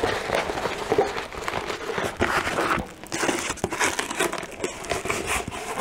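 Plastic-film-covered diamond painting canvas crinkling and rustling as it is rolled up by hand, with many small irregular crackles.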